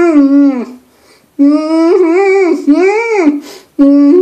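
A man's wordless voice with his lips closed, humming and babbling in wavering, rising-and-falling phrases with short breaks between them.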